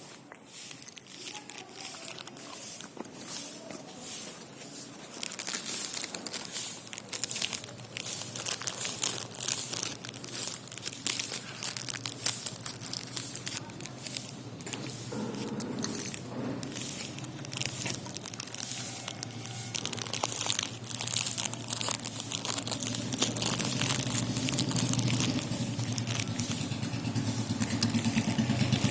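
A desi dog puppy chewing and crunching a biscuit, with many short crisp crunches. A steady low hum comes in about halfway and grows louder toward the end.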